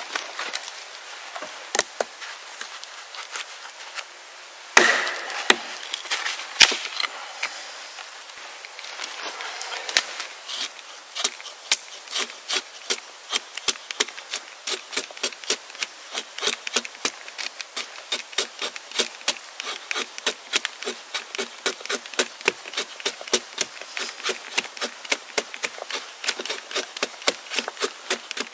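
A blade chopping into wood: a few heavier knocks, then a long run of light, quick, regular strokes at about three a second.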